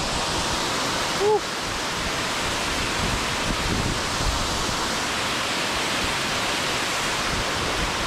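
Steady rushing roar of a tall waterfall cascading down a rock face into a plunge pool, heard close up. About a second in there is a brief voice sound, then the level drops slightly.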